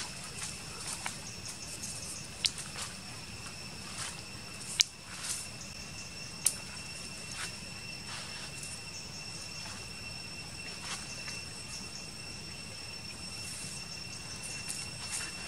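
Steady high-pitched insect trilling, with scattered sharp clicks and taps over it; the loudest clicks come about two and a half, five and six and a half seconds in.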